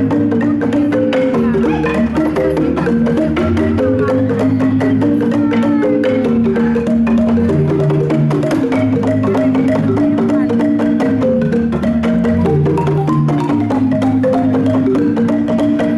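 Wooden marimbas played live with mallets: a fast, repeating pattern of struck notes over low bass notes.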